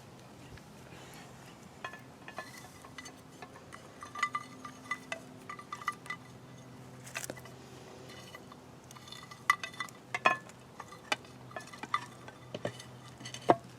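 Terra cotta clay pots and saucers clinking and knocking lightly against each other as they are handled, in scattered small ringing clinks that come in clusters, with a sharper knock near the end.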